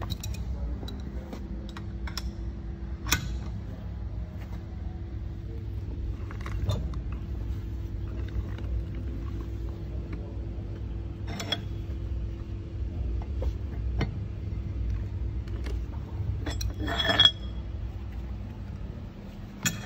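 Steady low machine hum with a couple of held tones, broken by occasional light metallic clicks and knocks; the loudest is a short ringing clink about 17 seconds in.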